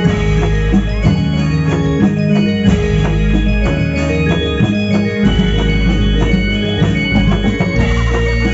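Live reog ensemble music: drums struck in a quick, steady rhythm over sustained organ-like melodic tones, played loud through a loudspeaker.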